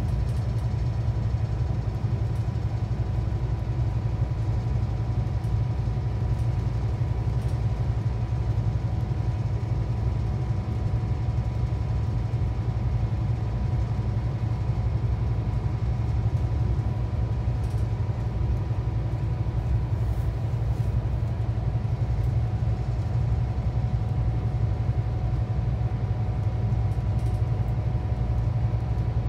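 Steady engine drone and road noise inside a Scania K360EB4 coach with an Irizar i6 body on the move, running evenly with a faint steady whine above the low hum.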